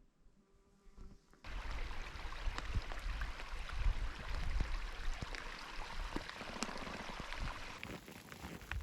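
Rain falling steadily, with many close drop hits clicking through it, starting abruptly about a second and a half in after a short quiet stretch.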